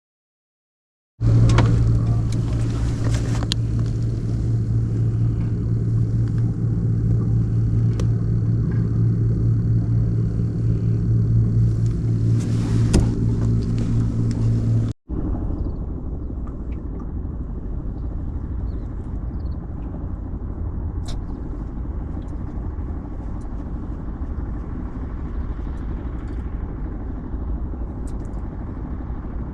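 Fishing boat's engine running, a steady low hum with a strong pitch. About halfway through it gives way to a duller, lower rumble.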